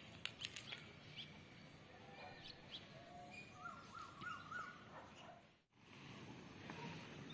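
Faint morning birdsong: several birds chirping and calling over a low outdoor background, with a quick run of rising chirps near the middle. The sound drops out for an instant about two-thirds of the way through.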